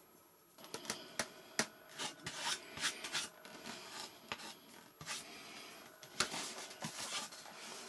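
Hands rubbing and handling the foam parts of a model jet: irregular rustling and rubbing with scattered small knocks and clicks, starting about half a second in.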